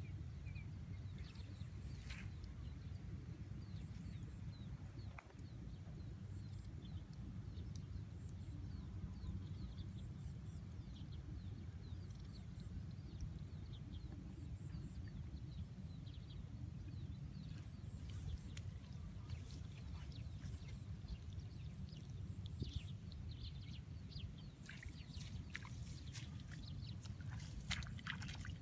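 Outdoor ambience: a steady low rumble with faint small splashes and drips of water, and a thin, steady high whine through most of it.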